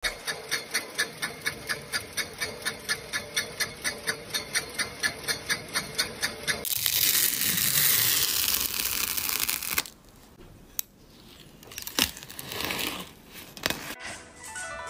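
Bottle-capping machine running with a steady rhythmic clicking, about four clicks a second over a constant hum. About seven seconds in it cuts off suddenly to a spatula scraping through glittery sand slime in a ceramic bowl, a hissing scrape that fades into quieter scraping with a few sharp ticks.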